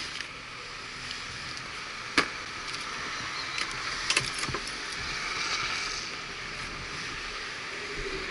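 Yamaha Neos scooter's seat shut with one sharp clack about two seconds in, followed by a few light clicks about four seconds in, over a steady background hiss.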